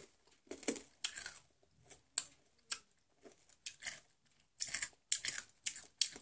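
Chewing and sucking on a Toxic Waste sour hard candy close to the microphone: a string of short, sharp mouth clicks and crunches at irregular intervals.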